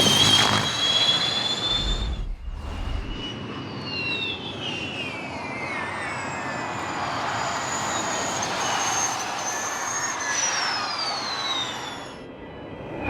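Formula E electric race cars at speed: a high electric drivetrain whine over tyre and wind rush, falling in pitch several times as the cars pass and slow. The sound breaks off abruptly twice, about two seconds in and near the end.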